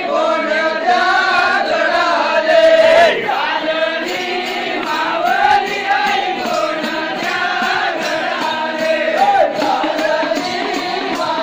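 A group of men chanting a devotional song together, with voices wavering in a continuous, repetitive melody.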